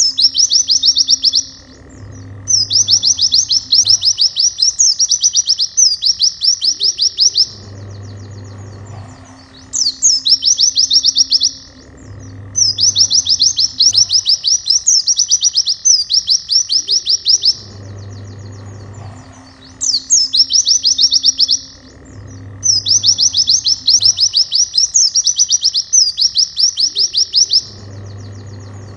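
White-eye (pleci) song: bursts of loud, rapid high trills a couple of seconds long, each opening with a quick falling note, repeating with short pauses. This is the fast 'nembak' style used as a tutor song for training other pleci. Soft background music with plucked guitar notes runs underneath.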